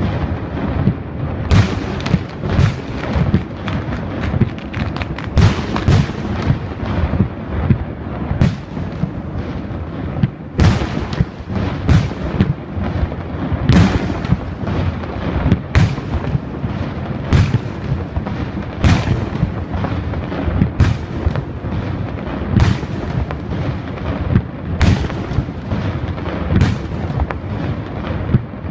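Starmine fireworks barrage: sharp bangs about one or two a second over a continuous low rumble of overlapping booms.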